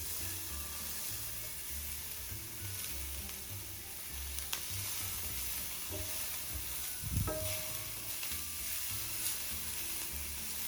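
Sliced onions sizzling steadily in hot oil in a frying pan as they are sautéed toward translucent. A single low knock a little after seven seconds in.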